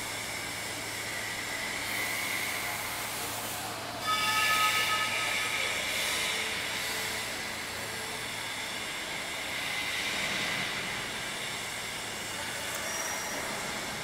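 Steady machinery noise of a factory workshop: a low hum with a hiss. About four seconds in, a higher whining machine tone joins and then slowly fades.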